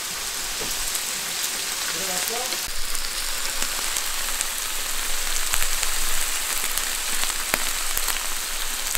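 Pork belly sizzling on a hot griddle plate: a steady hiss with scattered pops and crackles of spitting fat.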